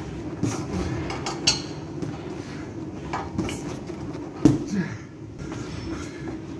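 Boxing gloves punching a heavy bag that hangs from a chain: irregular thuds with metallic clinks from the chain and swivel, the loudest blow about four and a half seconds in.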